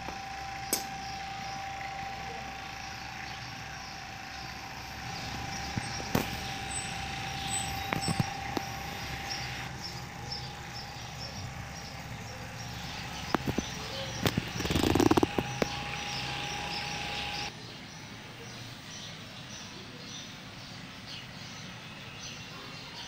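Steady electrical hum from a mains-powered appliance that cuts out suddenly about two-thirds of the way through as the power fails. Scattered clicks and a louder rustle of fabric being handled come before the cut-off, and faint bird chirps run underneath throughout.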